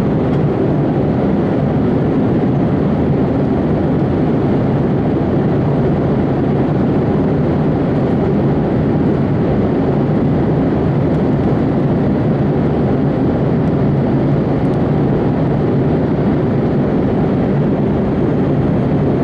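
Steady roar of an airplane in flight, heard from inside the passenger cabin, even and unchanging throughout.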